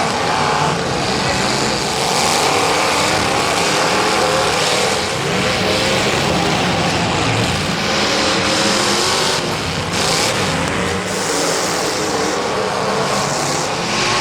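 Several demolition derby cars racing on a track, engines running hard and revving under continuous track noise.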